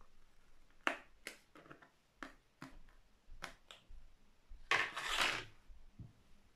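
Packaging of false eyelashes being opened and handled: a string of small, sharp plastic clicks and taps, then a short, louder rustle about five seconds in.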